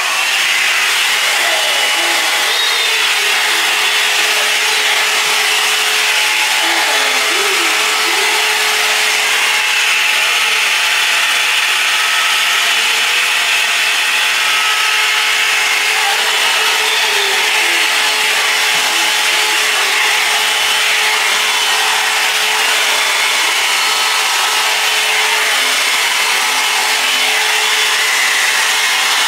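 Comb blow dryer running steadily: a loud, even rush of air over a constant motor hum.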